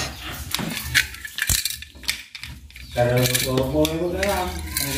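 Die-cast toy cars and plastic track pieces clicking and clattering against a hard tiled floor, with several sharp clicks in the first few seconds. From about three seconds in, a voice makes a drawn-out wordless sound over it.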